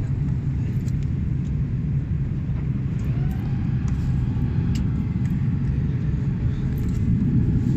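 Steady low rumble of a passenger airliner's cabin during descent: engine and airflow noise heard from inside the cabin.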